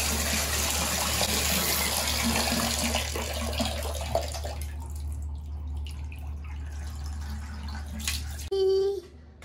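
Water running from the tap into a bathtub, splashing steadily; it thins out about halfway through. Near the end a young child's voice is briefly heard.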